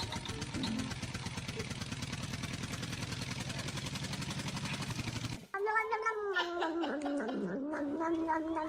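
A fast, even pulsing noise, then, after a sudden cut about five and a half seconds in, a cat's long drawn-out yowl that wavers and dips in pitch before holding steady.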